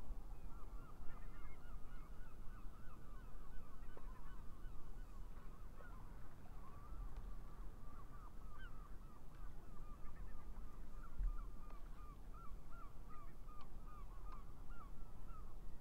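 A flock of geese calling: many short honks overlapping without a break, over a steady low rumble.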